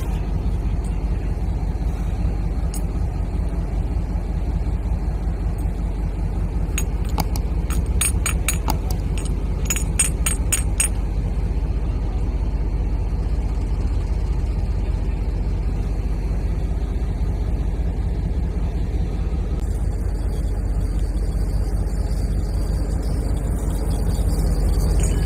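A steady low rumble throughout, with two quick runs of light metallic clicks about seven and ten seconds in, as a brass pipe fitting is handled and set down on a steel rail.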